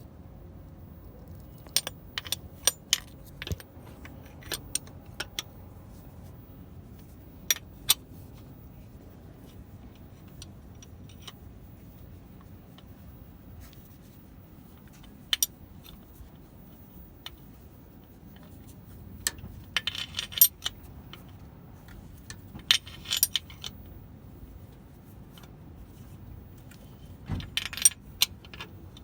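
Scattered light metallic clinks and clicks, loose and irregular, with small bunches of them about two thirds of the way through and near the end.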